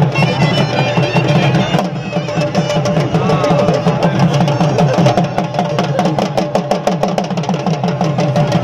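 Dhol drums beaten fast and hard in a steady dance rhythm. A shrill wind-instrument melody plays over the drumming for the first couple of seconds, then the drums carry on alone.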